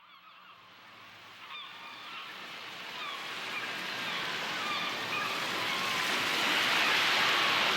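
Birds calling in quick, repeated cries over a steady wash of waves and surf, fading in from silence and growing steadily louder.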